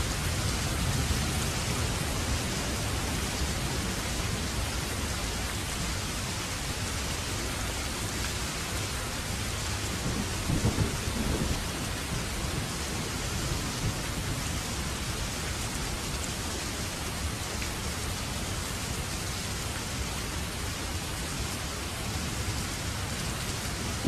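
Steady rain with a continuous low rumble underneath, with a short louder patch about ten seconds in.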